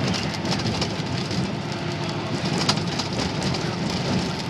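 Heavy rain hitting the windshield of a moving vehicle, heard from inside the cab: a dense patter with scattered sharp ticks over steady low road noise.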